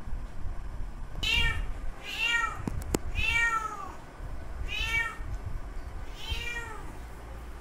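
Male cat meowing five times, each call drawn out and rising then falling in pitch: a tom's mating call to a female in heat.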